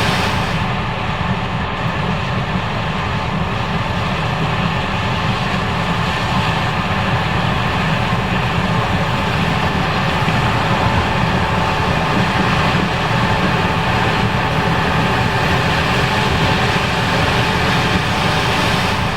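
Case IH 5140 Axial-Flow combine running steadily while harvesting corn: a loud, even mechanical din with several held tones over a low rumble.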